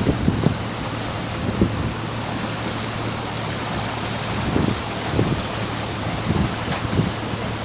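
River boat under way: its engine runs with a steady low hum, while wind buffets the microphone in irregular low thumps over a constant rush of air and water.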